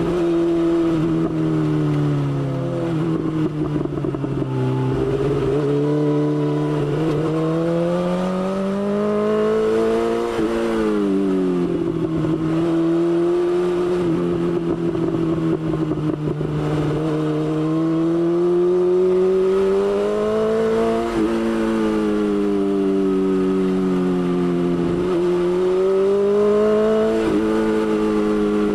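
BMW S1000XR motorcycle's inline-four engine running under way. Its pitch rises and falls with the throttle, with sudden drops about a third and about two thirds of the way through.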